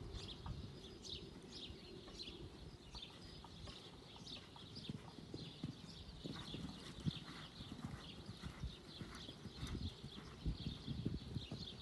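Horse's hooves thudding dully on a sand arena at a canter, in an uneven rhythm. One louder thud comes about seven seconds in.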